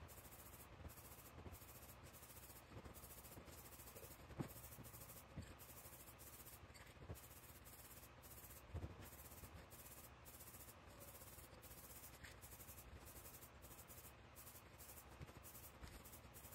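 Faint rattle of an aerosol spray paint can being shaken, its mixing ball rattling in a steady rhythm of about two shakes a second.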